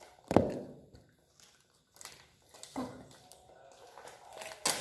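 A sharp thump about a third of a second in, then softer knocks and crinkling as plastic snack wrappers are handled and opened.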